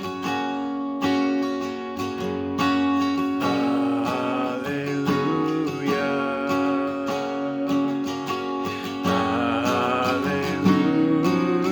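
Acoustic guitar strumming sustained chords in a steady rhythm, with a wavering melodic line joining about a third of the way in.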